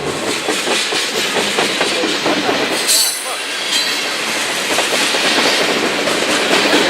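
Canadian Pacific mixed freight train's cars rolling past, the wheels clattering steadily over the rail joints, with a brief high squeal about three seconds in.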